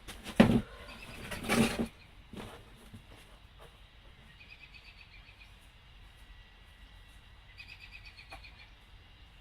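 A few loud knocks and handling clatter in the first two seconds, then two faint rounds of bird chirps, about four and a half and seven and a half seconds in.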